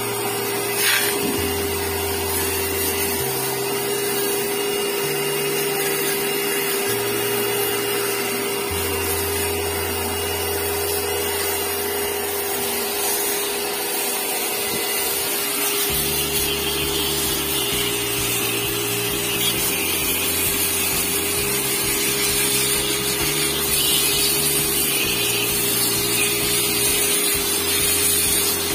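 Pressure washer (jet cleaner) running steadily, its motor giving a constant hum under the hiss of the water jet, used to clean a refrigerated showcase's condenser coils.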